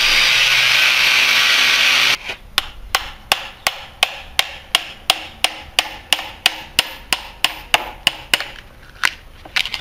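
An angle grinder's cutting disc runs in a hardwood railway sleeper and cuts off abruptly about two seconds in. Then a hammer strikes a steel chisel driven into the wood in a steady run of sharp blows, about three a second, spacing out near the end.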